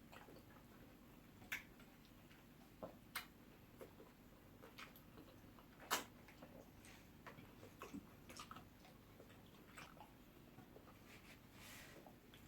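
Quiet eating sounds of ogbono soup with pounded yam: scattered soft mouth clicks and smacks, the sharpest about six seconds in, over a faint steady room hum.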